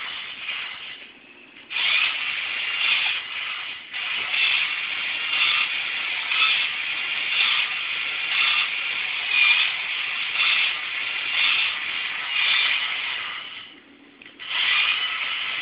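Small DC motor running with a steady whirring that swells about once a second. It is switched off and on several times and picks up straight away each time, its current supplied by an ultracapacitor so it gets full torque from a current-limited source.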